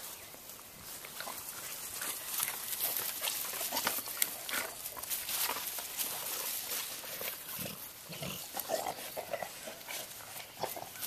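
Dogs playing with sticks in grass: the dogs' play noises over a run of rustles and knocks from sticks and paws moving through the lawn, with a few short vocal sounds near the end.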